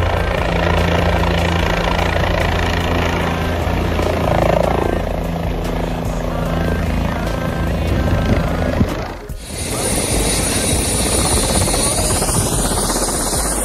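Light helicopter coming in to land, its main rotor and turbine running loud and steady. About nine seconds in the sound cuts to a closer take, with rotor downwash buffeting the microphone.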